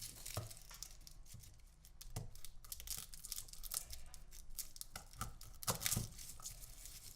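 Irregular crinkling and tearing rustles with small crackles, like papery or plastic material being handled and torn, loudest a little before six seconds in.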